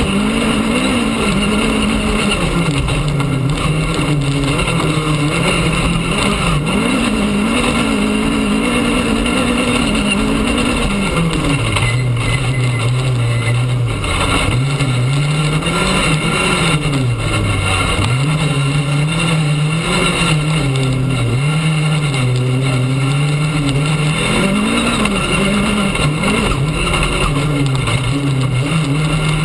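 Rally car engine heard from inside the cabin at full stage pace. Its note climbs and drops again and again with gear changes and throttle lifts, over steady tyre and gravel noise from the dirt track.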